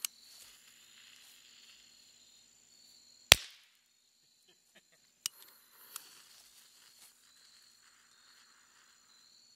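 A tube firecracker packed into a pumpkin goes off with one sharp bang about three seconds in, after a faint hiss. A couple of small clicks follow.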